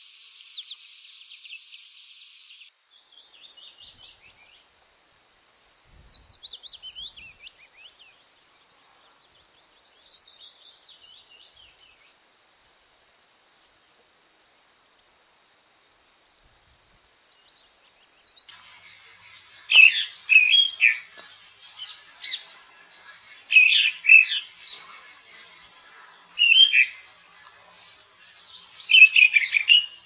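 Songbirds singing: runs of short falling chirps over a steady high insect-like buzz, then from about two thirds of the way in, loud, varied song phrases every few seconds.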